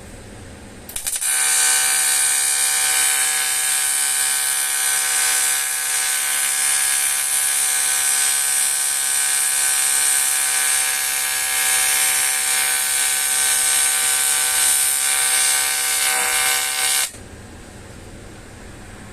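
Argon (TIG) welding arc on an aluminium alloy wheel: a steady electric buzz with a hiss, starting abruptly about a second in, holding for about sixteen seconds and cutting off abruptly.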